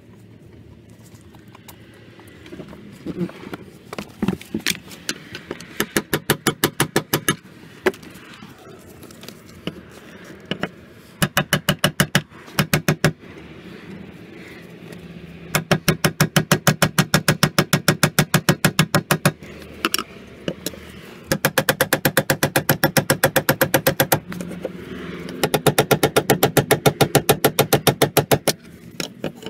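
Rapid metal-on-metal tapping in runs of one to four seconds, many strikes a second with short pauses between runs: a tool being struck against the fuel pump lock ring of a BMW E46 to turn the ring loose.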